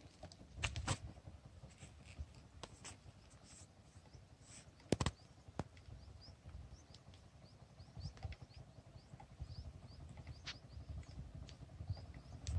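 Quiet outdoor ambience with scattered sharp clicks and knocks, and from about six seconds in a small bird chirping repeatedly, two or three short high chirps a second.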